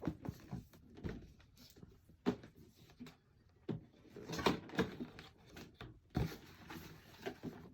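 A cardboard collectible box and its packaging being handled and opened: scattered taps, knocks and soft rustles, irregular and short.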